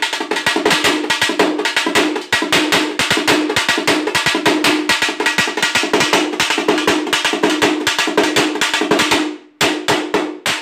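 Background music of rapid drumming, many strokes a second over a steady held tone, breaking off about nine seconds in and resuming as a few separate strikes.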